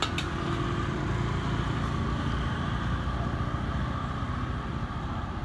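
Road traffic on a wet street: a motor vehicle running past with a steady low engine rumble that swells and eases. Two sharp clicks right at the start.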